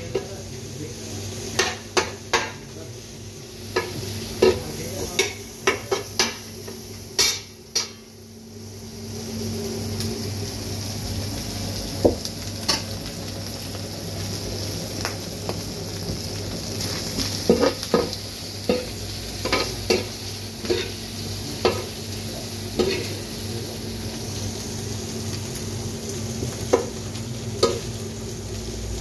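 Shredded beef for tantuni sizzling in oil in the well of a large steel pan, with a metal utensil scraping and clinking against the steel at irregular moments. A steady low hum runs underneath.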